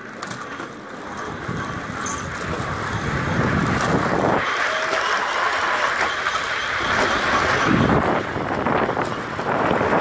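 Rushing noise of a zip-line ride: the trolley wheels rolling along the overhead rail, mixed with wind on the microphone. It grows louder over the first few seconds as the ride picks up speed.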